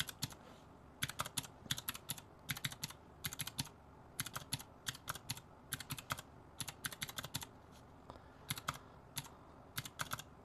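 Calculator keys being pressed in quick runs of clicking taps while adding up budget figures.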